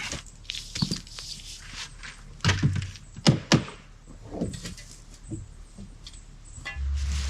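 A series of separate thuds and knocks as things are moved and set down; near the end a steady low rumble begins.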